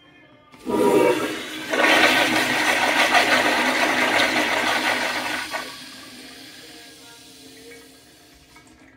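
1980s American Standard Instanto toilet flushing. The rush of water starts sharply about half a second in, grows louder a second later, and cuts down after about five seconds to a quieter, fading trickle as the bowl refills.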